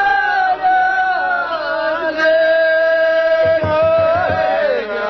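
Group of men chanting Ahwach, the Amazigh call-and-response song of the Souss, holding long notes together and sliding from one pitch to the next. A short run of low thumps comes about three and a half seconds in.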